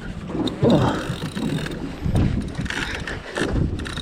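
Wind buffeting the microphone in irregular low gusts, with the mechanical winding and clicking of a fishing reel as the angler works a heavy fish holding in the current.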